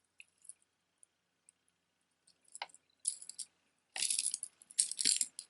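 Beaded costume jewelry clinking and jangling as it is handled: a few light clicks at first, then louder bursts of rattling and clattering beads and metal over the last two and a half seconds.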